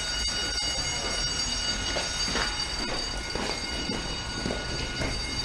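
Fire alarm bell ringing without a break, several high tones sounding together at a steady level.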